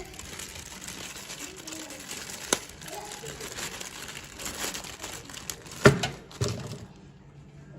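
Plastic packaging crinkling and rustling as it is handled, with a few sharp clicks about two and a half seconds in and again near six seconds; the rustling fades in the last second.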